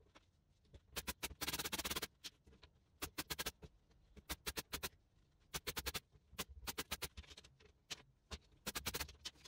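Corded electric brad nailer firing into weathered pallet wood slats, in quick clusters of several sharp snaps about every second, with a denser clatter of wood on wood about a second and a half in.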